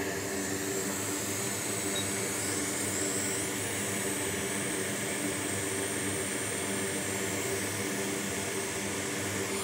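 Hot air rework station blowing steadily, a rush of air with a low hum underneath, while it heats a backlight driver chip to desolder it from the logic board.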